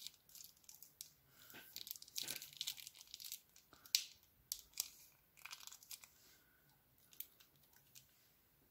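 Thin plastic piping bag crinkling and tearing as fingers peel it open, in irregular clusters of crisp crackles that are busiest in the middle and thin out near the end.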